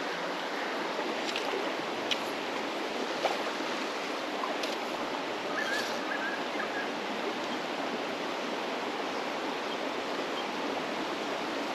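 Small creek's water running steadily over rocks, a continuous even rush, with a couple of faint clicks about two and three seconds in.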